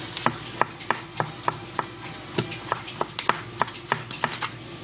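A kitchen utensil chopping up smoked meat: a quick, even run of sharp knocks, about three a second.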